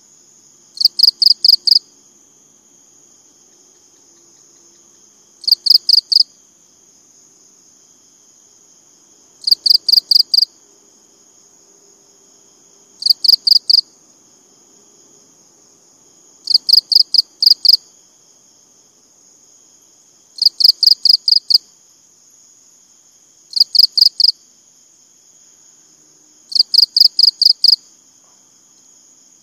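A cricket chirping in eight bouts, about one every three and a half seconds. Each bout is a quick train of five to eight sharp high-pitched pulses lasting about a second. A steady high-pitched insect drone runs underneath.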